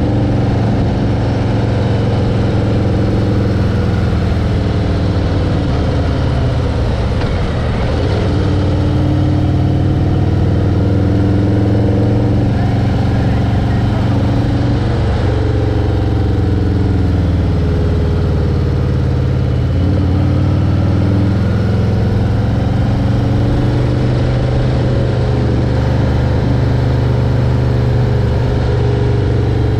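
An engine running continuously, its speed dipping and rising again a few times.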